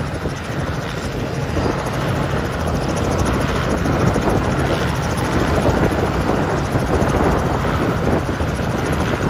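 Piston engine of a light aircraft droning steadily, growing louder over the first few seconds and then holding.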